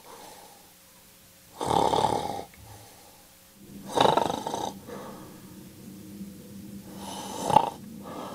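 A man snoring: three snores about two and a half seconds apart, the last the loudest, ending in a sharp peak.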